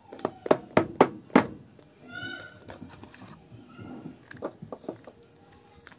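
Cardboard phone box being handled: a quick run of sharp knocks and taps, then a short high-pitched squeak about two seconds in, and a few more scattered knocks later.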